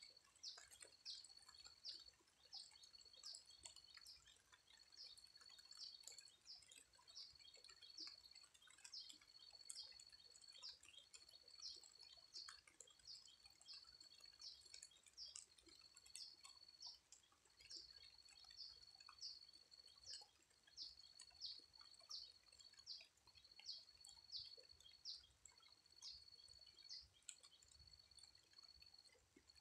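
A faint, high-pitched animal call repeating steadily: a short held buzz followed by two or three quick ticks, about every second and a half.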